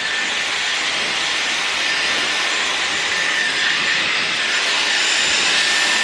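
Dyson Airwrap with its hairdryer attachment blowing, drying wet hair: a steady rush of air with a thin high whine from the motor over it.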